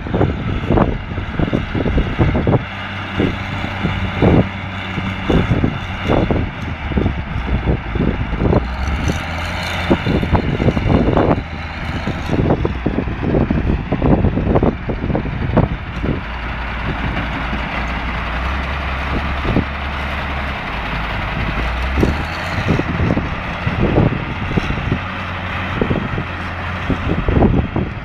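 Heavy diesel engines running as a wheel loader works around tipper trucks, the engine note stepping up and down a few times. Wind buffets the microphone in repeated gusts throughout.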